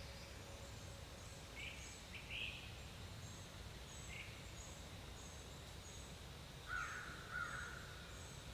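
Wild birds calling: a high, thin note repeated about twice a second, a few short chirps, and two louder calls about seven seconds in.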